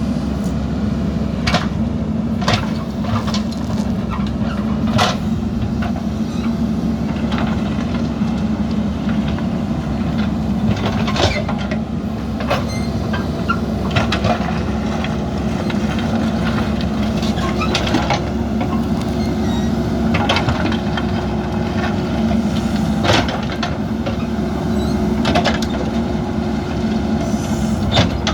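JCB backhoe loader's diesel engine running steadily under load, with scattered sharp clanks and knocks as it digs and spreads earth and gravel.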